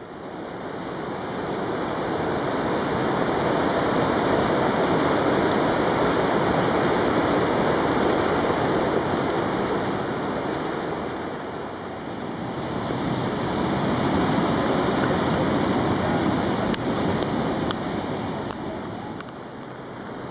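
Swollen floodwater rushing and churning through a creek channel, a loud, steady wash of turbulent water that eases off near the end.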